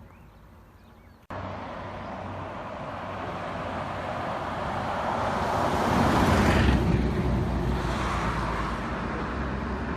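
A road vehicle driving past: engine and tyre noise cuts in abruptly about a second in, swells to its loudest about two-thirds of the way through, then eases off.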